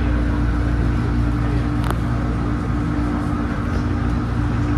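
Passenger coach of the steam-hauled SL Gunma Yokokawa running along the line, heard from inside: a steady low rumble from the wheels on the rails with a constant hum over it, and a single click about two seconds in.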